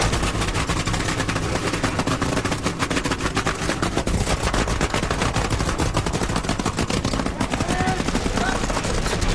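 Nitromethane-burning funny car engines (supercharged Hemi V8s) running, a loud, rapid crackle of firing like a machine gun.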